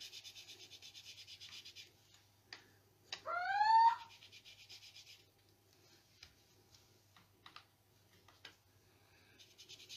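Ink dauber rubbing ink onto paper in quick small strokes, a soft rhythmic scrubbing about eight strokes a second, which stops and starts again. Just after three seconds comes a short, louder squeak rising in pitch, then a few light taps.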